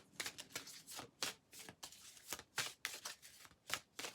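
Tarot cards being shuffled by hand: a string of irregular soft slaps and flicks of the cards against each other.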